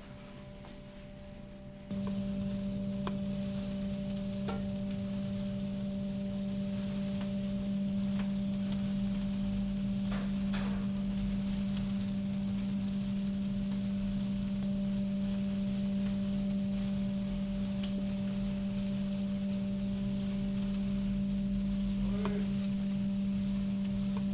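A steady low hum that starts about two seconds in, likely from the grill hood's extraction fan. Under it, kebab skewers sizzle faintly over charcoal, with a few light clicks of metal skewers.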